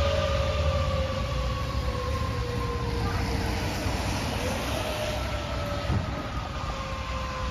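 Fire engine siren winding up quickly and then sliding slowly down in pitch, twice, once at the start and again about four and a half seconds in, over a low rumble of traffic.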